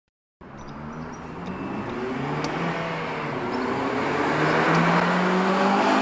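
Honda Civic Type R (FN2) 2.0-litre i-VTEC four-cylinder engine pulling under acceleration as the car drives toward the listener, starting about half a second in and growing steadily louder, its pitch creeping upward.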